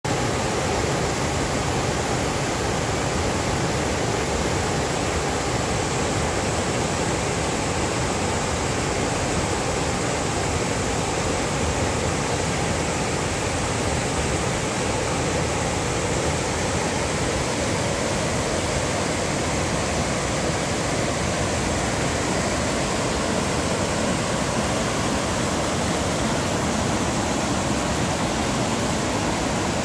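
Mountain creek rushing over boulders in white-water rapids: a steady, loud, even roar of water.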